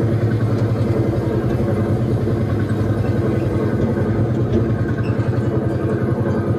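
Engine sound of a theme-park ride tractor running steadily as it moves along its track, a low, even, fast pulse.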